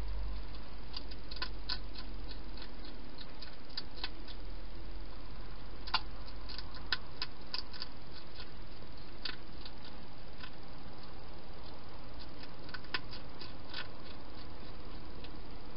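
Wild hedgehog eating from a bowl: irregular small crunching clicks as it chews, in scattered clusters over a steady hiss.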